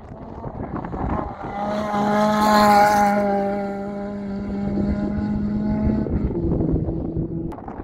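Rally car flat out on a gravel stage, its engine note growing louder as it approaches and passing closest about three seconds in with a burst of hiss. The note holds, then drops to a lower pitch about six seconds in as the car pulls away and fades.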